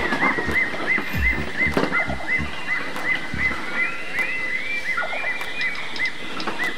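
Animal calls: a short arched chirp repeated evenly about three times a second, with other brief chirps and a few low thuds.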